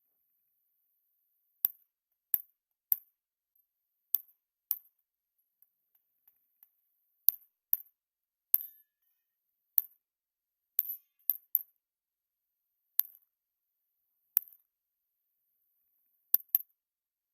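Pistol shots fired during a timed practical-shooting stage: about sixteen sharp cracks, some close together and others after gaps of a second or more as the shooter moves or reloads.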